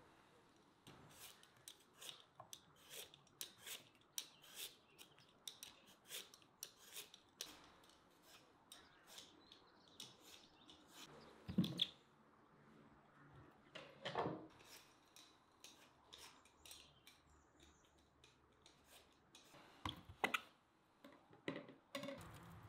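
Raw beetroot being peeled by hand with a blade: short scraping strokes about twice a second, then a few louder knocks about midway and near the end as the peeled beets are put into a plastic tub.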